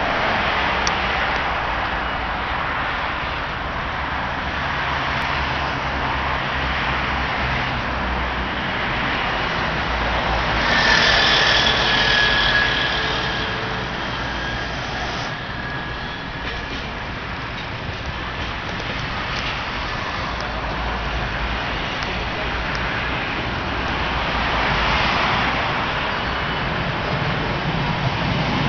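Steady road traffic passing on the adjacent road, with a high squeal lasting a few seconds about ten seconds in. Near the end a low rumble builds as a Breda tram passes underneath.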